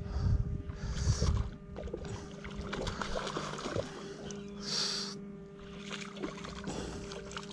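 A boat motor running with a steady hum, with wind buffeting the microphone in the first second and a half and a short hiss about five seconds in.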